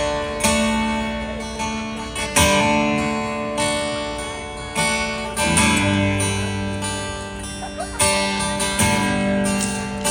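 Live acoustic guitar playing a song intro: chords strummed once every second or two and left to ring out and fade between strikes.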